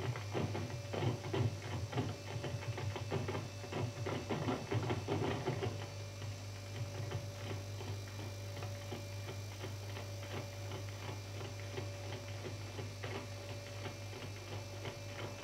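Tap shoes tapping out a tap-dance routine: quick, dense runs of taps for about the first six seconds, then sparser, quieter taps, over a steady low hum.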